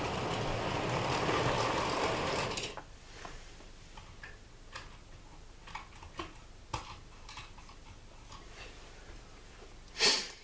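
Hornby K1 OO gauge model locomotive running along the track, its motor and wheels making a steady whirring rattle that stops abruptly a little under three seconds in. A few light clicks and taps follow, then a short loud rustle near the end.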